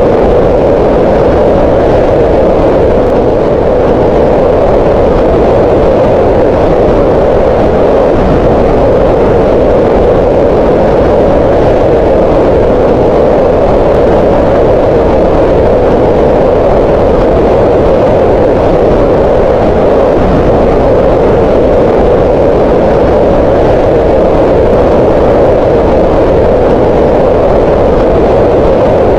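Green noise: a steady, unchanging rush of synthetic noise centred in the midrange, loudest around 500 Hz.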